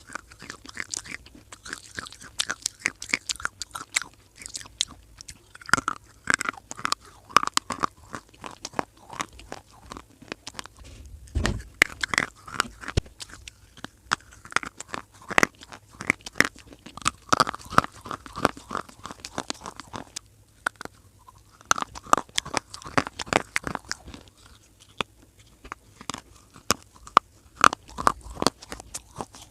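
Dry baked clay (mitti) being bitten and chewed close to the microphone: runs of sharp, crisp crunches with short pauses, including a brief lull about twenty seconds in.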